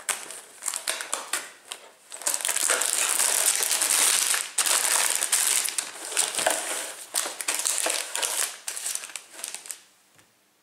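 Cardboard Lego box being opened and the plastic bags of parts crinkling and rustling as they are pulled out and handled, with scattered clicks and taps. The crinkling is densest and loudest in the first half and dies away near the end.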